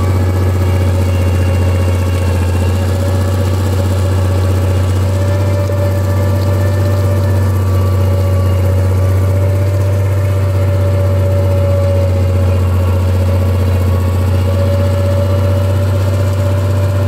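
Tractor diesel engine running steadily under load as it pulls a mounted disc plough through the soil, a constant deep hum.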